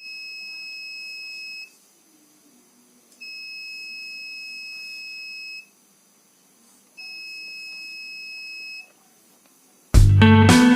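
A 12 V buzzer on a laser tripwire alarm circuit sounds three times, each a steady high tone of about two seconds; the alarm goes off when the laser beam on the LDR is broken. Loud guitar music comes in near the end.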